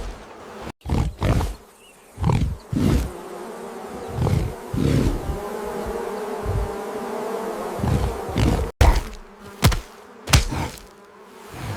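Bee swarm buzzing, a steady droning hum, broken by many short sudden hits or whooshes; the sound cuts out abruptly for an instant twice.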